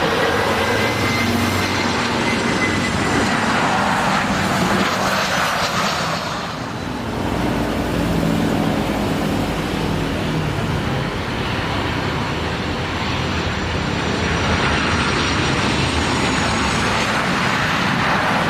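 Boeing 737-500's CFM56-3 turbofan engines, a loud, steady jet noise as the airliner flies in on its landing approach, dipping briefly about six and a half seconds in.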